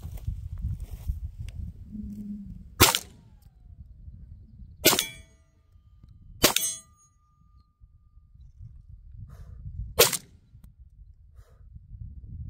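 Beretta 1301 Tactical 12-gauge semi-automatic shotgun firing four single shots, spaced about two seconds apart with a longer gap before the last. A short ringing tone hangs after the second and third shots.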